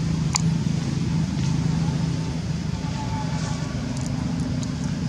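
Steady low hum of an engine running, with a sharp click about a third of a second in.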